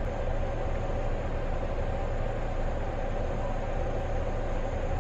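Steady low rumble and hum of a moving public transit vehicle, heard from inside the passenger cabin.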